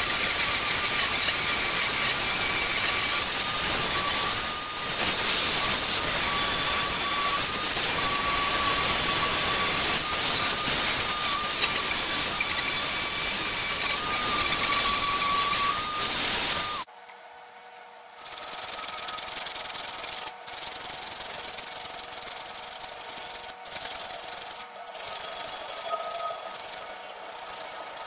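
High-speed rotary tool with a small sanding drum sanding rusty cast iron, a steady whine over a gritty hiss, which cuts off about 17 seconds in. After that, uneven back-and-forth strokes of sandpaper rubbed by hand over the metal.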